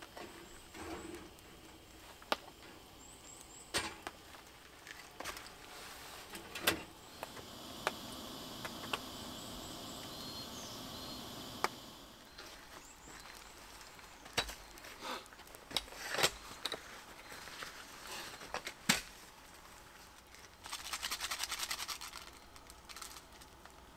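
Cooking at a gas camp stove: scattered clinks and knocks of a metal pot, lid and utensils, with a few seconds of steady hiss in the middle and a quick rattling run of small clicks near the end.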